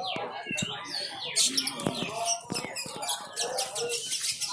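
Many caged songbirds chirping and trilling over one another in a dense, continuous chorus, with people talking faintly underneath.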